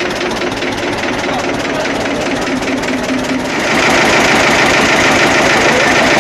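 A vehicle engine running with an even, rapid pulse, getting louder about three and a half seconds in.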